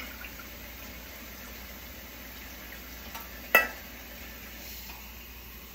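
A glass of water is poured into a large pot of rice over a steady hiss. A sharp clink of the glass against the pot comes about three and a half seconds in.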